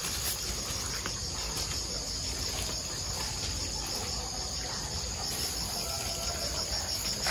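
Chorus of night insects, crickets among them: a steady, high-pitched pulsing trill.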